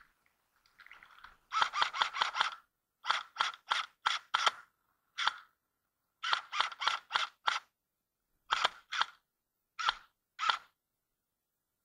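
Airsoft rifle firing quick strings of sharp shots, about five or six a second, in three bursts, then a few single shots near the end.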